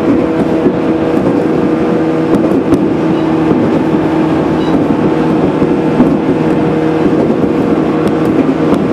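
Cabin running noise of a JR 415 series electric train travelling at steady speed: a constant hum with a few steady tones over the rumble of the wheels on the rails, and a few faint clicks from rail joints.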